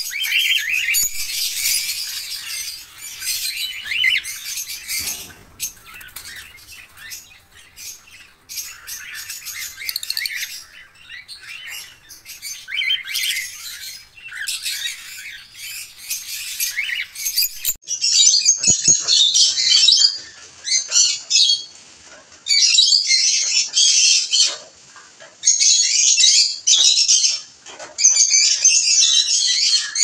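Caged parrots chirping and squawking: cockatiels calling at first, then, after a cut about 18 s in, louder chattering in short, dense bursts from lovebirds.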